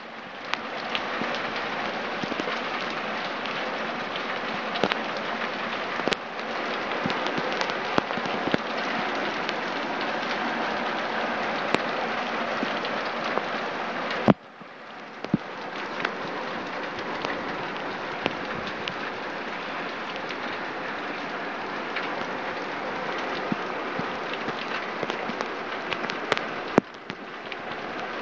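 Torrential rain pouring steadily, a dense hiss of rain with scattered sharp drip ticks close by. The rain noise drops suddenly and builds back twice, about halfway through and near the end.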